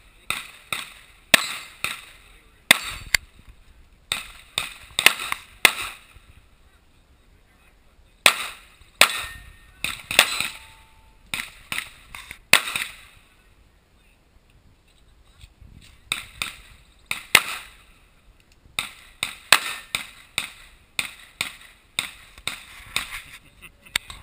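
Handgun fire at a timed practical-shooting stage: fast strings of sharp shots with short ringing tails, broken by two pauses of about two seconds.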